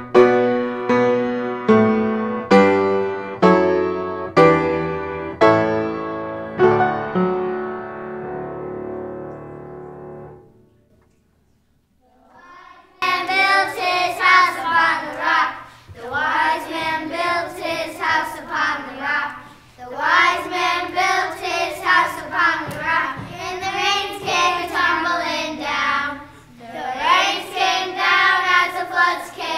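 Piano notes fading out over the first ten seconds, then after a brief silence a group of children singing together, phrase by phrase.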